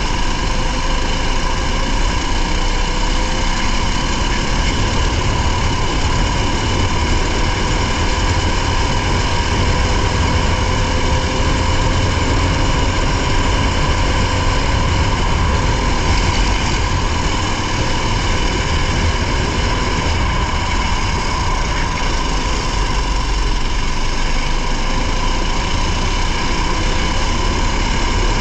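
Competition car's engine heard from inside the cabin, running at a fairly steady note with a constant drone and low rumble, without sharp revving.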